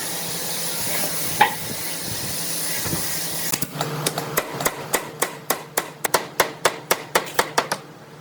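A steady hiss, then from about halfway a run of quick hammer taps, roughly four a second, on wood in a workshop.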